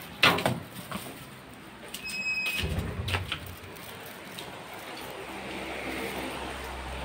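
Gate being opened and shut: a sharp bang about a quarter second in, then a short squeak and a couple of clicks a couple of seconds later.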